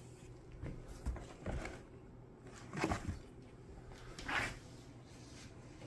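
A few scattered, light knocks and rustles of things being handled in and around an old wooden trunk, the clearest a little under 3 s and about 4 s in.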